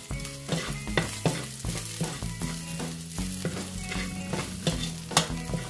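Chopped garlic sizzling in hot oil in a pan while a spatula stirs it, clicking and scraping against the pan a few times a second.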